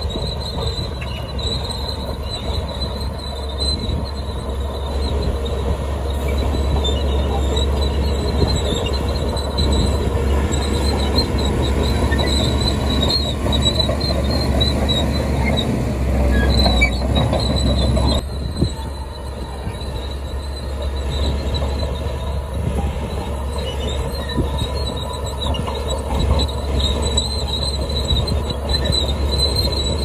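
Caterpillar D3K2 crawler dozer working under load: its diesel engine runs steadily while the steel tracks squeal and clank as it pushes earth and rock with the blade.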